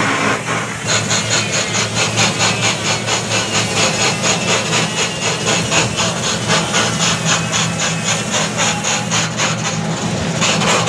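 Simple wood lathe driven by a dompeng single-cylinder diesel engine, turning a coconut-wood (glugu) log. The engine hums steadily, and from about a second in a cutting tool scrapes the spinning wood in a fast, even rasping rhythm that eases off near the end.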